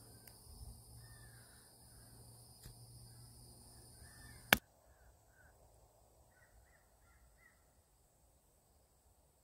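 Crows cawing faintly: scattered short calls, then a quick run of four about two-thirds of the way in. A single sharp click about halfway through is the loudest sound.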